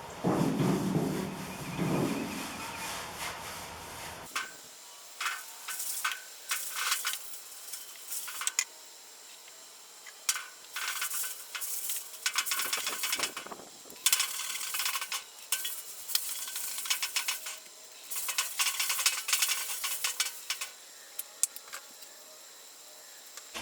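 Irregular bursts of scratchy rubbing and scrubbing on metal, each lasting up to a couple of seconds with short gaps between. A louder, low rumbling noise runs through the first four seconds, then stops abruptly.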